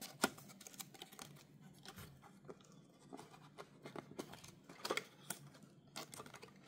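A diecast model car's cardboard box being opened and its insert card slid out by hand: faint rustling and scraping of card, with scattered light clicks and a few sharper ones near the start and about five seconds in.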